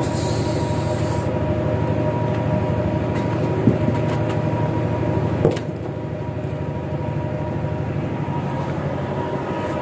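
A fishing boat's engine running with a steady, even drone. There is a short hiss in the first second and a single sharp knock about five and a half seconds in.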